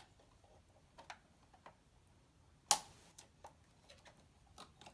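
Light plastic clicks and taps from a Bruder Mack Granite toy dump truck's cab being handled as its door is opened, with one sharp click a little after halfway.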